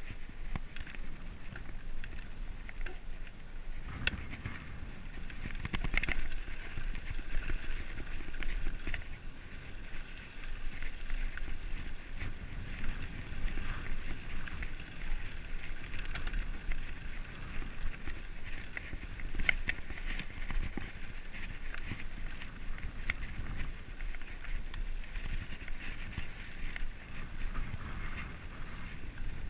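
Mountain bike rolling down a dirt and gravel trail: tyres crunching over the ground, with scattered clicks and rattles from the bike and a steady wind rumble on the bike-mounted microphone.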